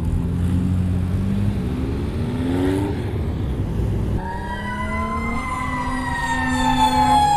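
Car engines revving as cars pass on the strip. From about four seconds in, an emergency-vehicle siren wails, its pitch falling slowly, then rising again near the end.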